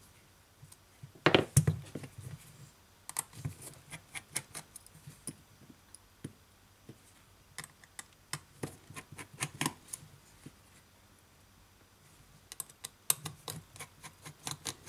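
Scattered small clicks and taps of a smartphone being taken apart by hand: a flex-cable connector is pried off the mainboard, with the sharpest clicks about a second and a half in, then a small precision screwdriver works at the mainboard screws.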